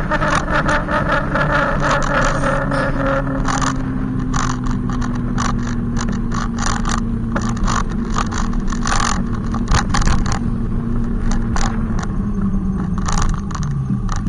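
Loud motor of an e-bike riding close behind, a steady droning hum with many short scraping crackles over it; its pitch falls near the end.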